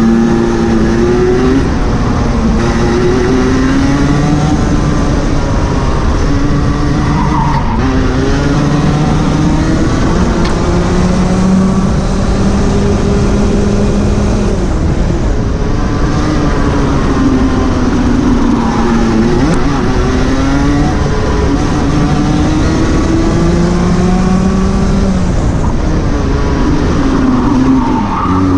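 Rotax 125 Junior Max Evo single-cylinder two-stroke kart engine running hard on track. Its revs climb over several seconds and then drop, again and again through the laps.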